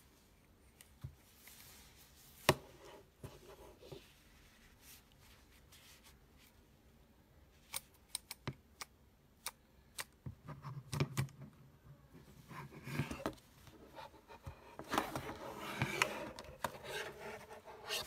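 Handling noise from a plastic Bluetooth selfie stick tripod: scattered sharp clicks and rubbing as its phone clamp and body are worked by hand, with one loud click about two and a half seconds in and denser clicking and rubbing in the second half.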